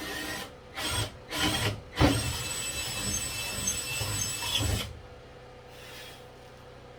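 Power drill boring a dowel hole through wood: a few short bursts, then a steady run that stops suddenly about five seconds in. The bit leaves the hole a little rough.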